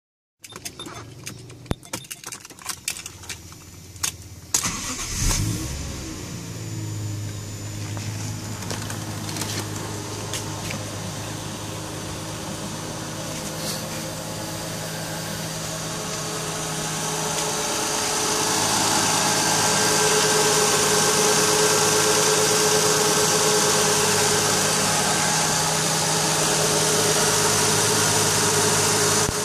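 A few sharp clicks, then the Toyota 1JZ-GTE twin-turbo straight-six starts about five seconds in and settles into a steady idle. From about two-thirds of the way through, the engine gets louder, with a rising hiss on top.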